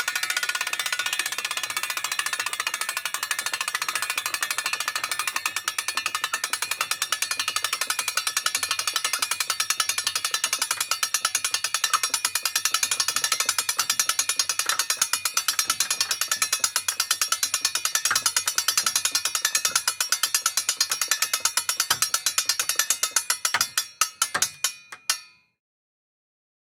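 Metal hand crank winding up a cable, its mechanism clinking in a rapid, even run of clicks that slows to a handful of separate clicks near the end and then stops.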